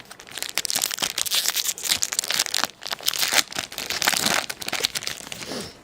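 Hockey card pack wrapper crinkling and tearing as a pack is opened and its cards handled, a rough, crackly rustle that stops just before the end.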